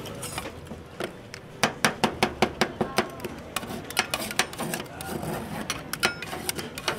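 A knife or cleaver chopping food on a board: rapid, irregular sharp knocks, about three or four a second.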